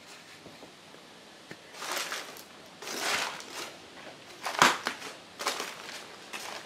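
Footsteps crunching and rustling through scattered paper and broken debris on a floor: several uneven steps, the sharpest crunch a little past the middle.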